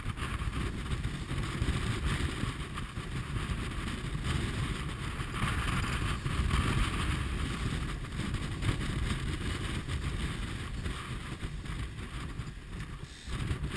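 Steady rush of wind and water aboard a J30 sailboat heeled hard under sail, with wind buffeting the deck-mounted camera's microphone.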